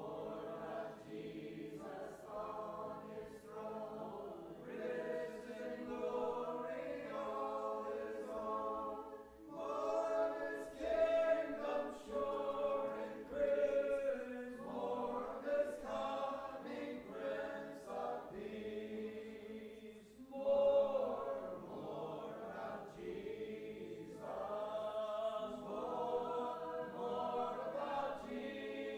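Church congregation singing a hymn a cappella, unaccompanied voices in sustained sung lines with short breaks between phrases about a third and two-thirds of the way through.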